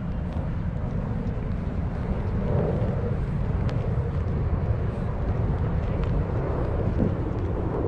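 Outdoor ambience: a steady low rumble of wind on the microphone over a distant hum of city traffic.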